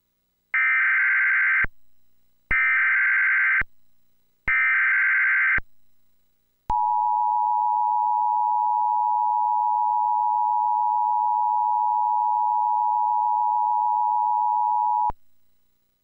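Emergency Alert System broadcast from a Trilithic EASyPLUS encoder/decoder: three one-second bursts of SAME header data tones, about two seconds apart, then the steady two-tone EAS attention signal held for about eight seconds. Together they open a Required Weekly Test.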